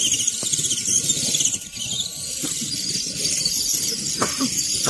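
Electric motor and gear drivetrain of a radio-controlled scale crawler truck whining as it crawls through snow, a steady high-pitched whine that wavers in pitch as the throttle changes.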